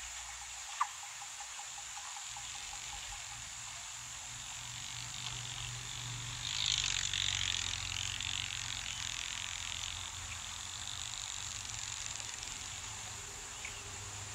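Outdoor bush ambience: a steady, high-pitched insect drone, with a sharp click about a second in and a louder rush of noise for a few seconds midway.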